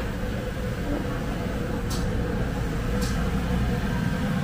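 Busy street-market ambience: a steady low rumble of background noise, with two short sharp clicks about two and three seconds in.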